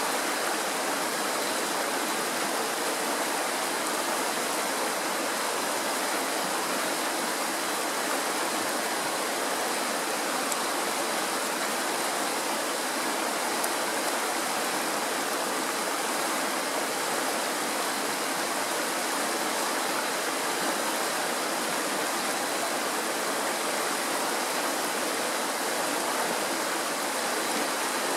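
Kirowa Woda, a Tatra mountain stream, rushing over rocks in small rapids: a steady, even rush of water with no breaks.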